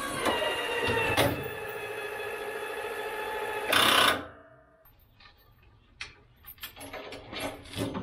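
A John Deere Gator's power-lift motor whining as it raises a rubber-flapped field drag. Its pitch sags as it takes up the load, and it ends in a loud burst about four seconds in before cutting off. A few sharp metal clinks of the drag's hitch chain follow.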